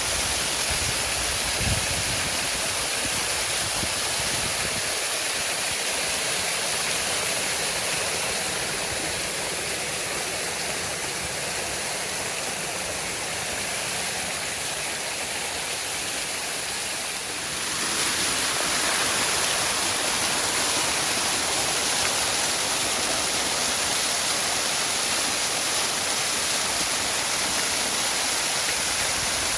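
Waterfall, the water rushing and splashing in a steady, even wash of noise, with a few low thuds in the first two seconds and an abrupt step louder about two-thirds of the way through.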